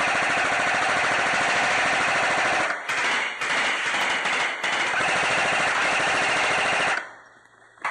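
Airsoft electric gun firing on full auto in long, rapid bursts, with brief breaks, then stopping abruptly near the end, followed by a single sharp click.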